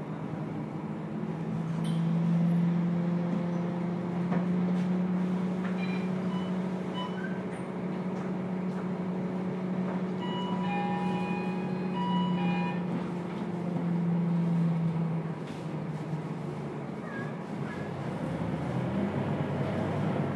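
Scania K230UB bus heard from inside the passenger cabin while under way: a steady low drone from the engine and drivetrain, with a held low whine that stops about three-quarters of the way through. About halfway through, a set of higher steady tones sounds briefly.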